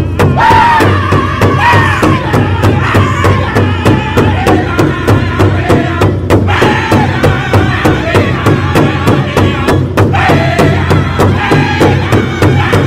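Pow wow drum group: a steady drumbeat with singers' high, wavering chant over it. The singing breaks briefly about six seconds in and again about ten seconds in while the drum keeps going.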